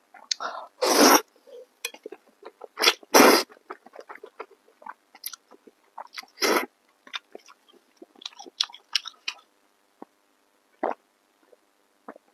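Close-miked eating of thick stir-fried wheat noodles: wet chewing and lip smacks, broken by three loud slurps about a second in, around three seconds and around six and a half seconds.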